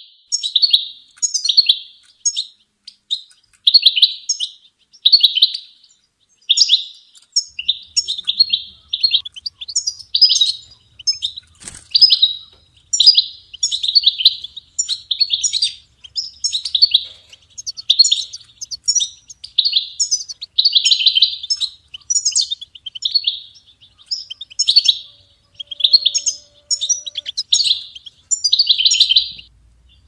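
European goldfinch singing: a long run of short, bright twittering phrases, about one a second, with a single sharp click about twelve seconds in.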